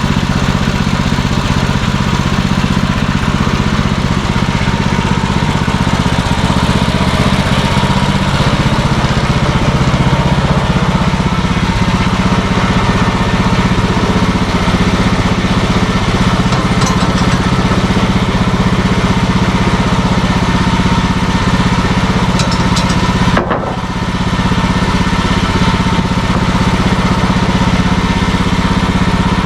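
Wood-Mizer portable sawmill running steadily, its engine holding an even pitch throughout, with a brief drop in level about three-quarters of the way through.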